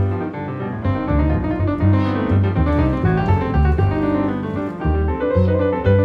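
Solo piano music, a flowing run of notes over changing bass notes.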